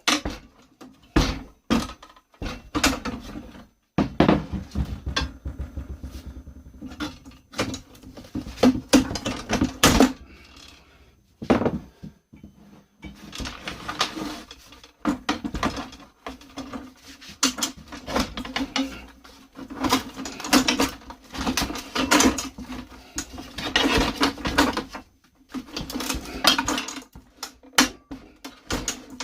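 Metal clanking, knocking and scraping as a combi boiler's heat exchanger is pried and hammered apart with hand tools: irregular sharp strikes throughout, with stretches of rapid rattling.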